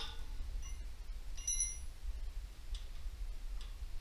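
Light metallic clicks of a hand wrench working a nut, with one short ringing clink about one and a half seconds in, over a steady low hum.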